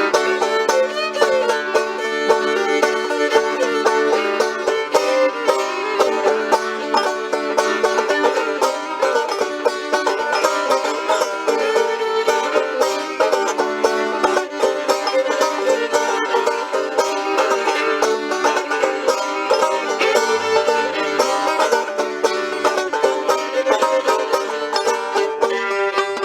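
Acoustic string music played live: fast, even picked notes over sustained tones, in an old-time or bluegrass style, with no singing.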